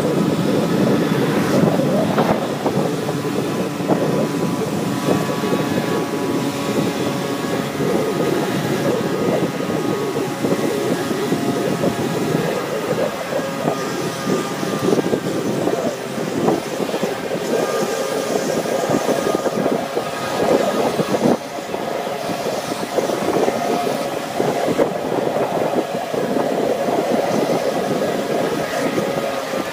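Moped engine running steadily under way, heard from the moped being ridden, a continuous rough, rattly drone.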